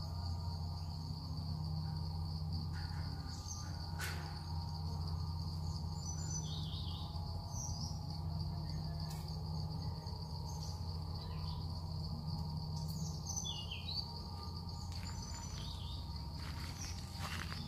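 Forest ambience: a steady, high-pitched insect drone with scattered short bird chirps, over a low steady hum.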